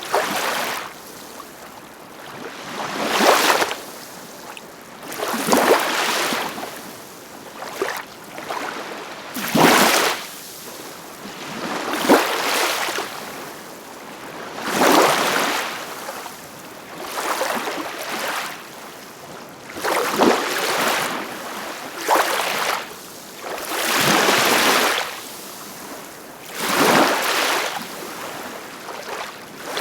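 Ocean waves breaking and washing in, one surge of surf swelling and fading every two to three seconds.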